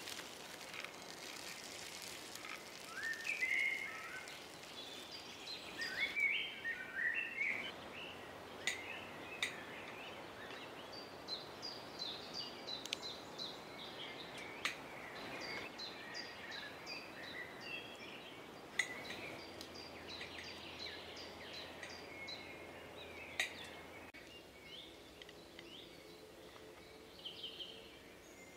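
Woodland birdsong: several birds chirping and trilling throughout, over a soft outdoor hiss, with a few sharp clicks scattered through.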